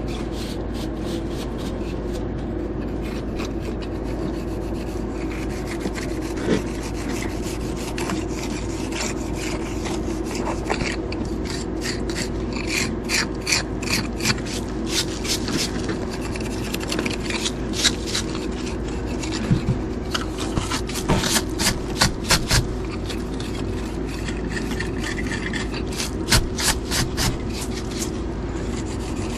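A metal jointing tool scraping along mortar joints between stone veneer pieces as the grout is tooled, in many short strokes that come thick and fast through the middle. A steady low hum runs underneath.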